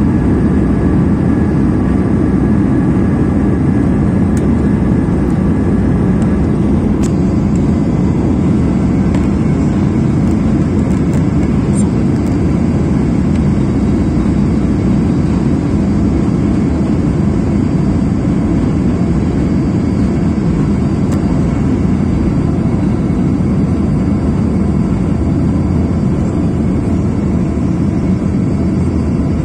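Steady, loud engine and airflow noise inside a jet airliner's cabin during the descent to land. A faint high whine stops about seven seconds in.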